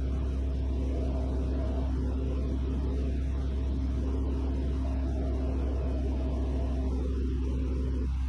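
Steady drone of a Van's RV-6A's piston engine and propeller in flight, heard through the cockpit headset audio: an even low rumble with two level hum tones above it.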